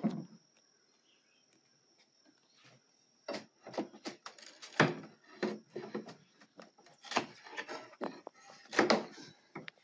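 Irregular knocks, taps and scrapes of a metal prying tool working on an old wooden door frame to loosen its nails. One sharp knock right at the start, a lull of a few seconds, then scattered knocks again, the loudest about five and nine seconds in.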